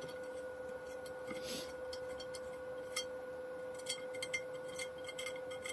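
Scattered light metallic clicks and ticks from a tap and small metal tools being handled after threading a hole in steel tubing, over a faint steady hum.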